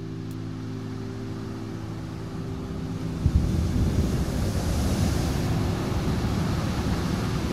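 Song intro: a held synthesizer chord, joined about three seconds in by a swelling rush of noise like sea surf that grows louder and covers it.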